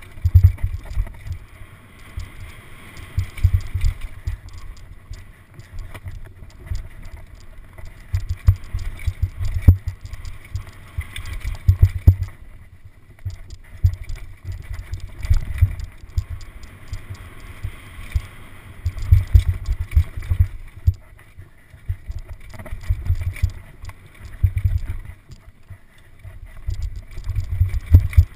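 Downhill mountain bike ridden fast down a rough dirt trail: irregular low thumps and wind buffeting the microphone, with light rattling of the chain and bike.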